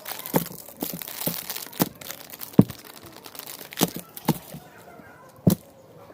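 Eating sounds close to the microphone: crisp, irregular crunches and cracks of biting and chewing, with a crinkling noise in the first couple of seconds.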